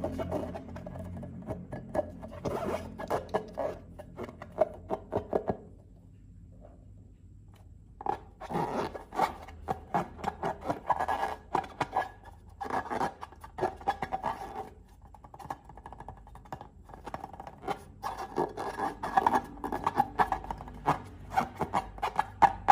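Slime being worked by hand: rapid sticky crackles, rubbing and scraping in bursts, with two short pauses.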